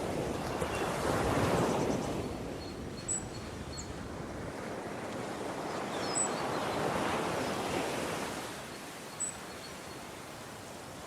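Waves washing in: two slow swells of rushing water sound a few seconds apart, over a steady hiss of wind.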